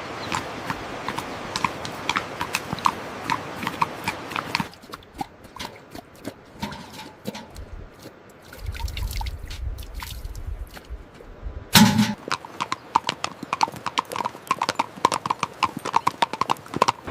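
A series of sharp knocks or clicks on a hard surface, a few a second. It thins out in the middle, where a low rumble comes in, then a single loud knock is followed by a faster run of clicks.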